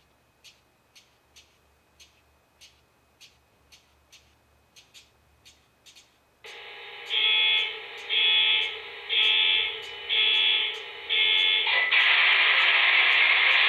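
Faint clicks about twice a second, then the Proto-Sound 3 speaker of an MTH HO-scale diesel locomotive model comes on with a steady background sound. Over it come five short horn blasts about a second apart, and then one long continuous horn blast.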